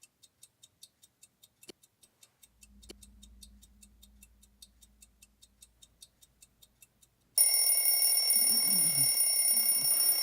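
A clock ticking faintly and quickly, about five ticks a second, then about seven seconds in an electronic alarm clock goes off with a loud, steady, shrill ring.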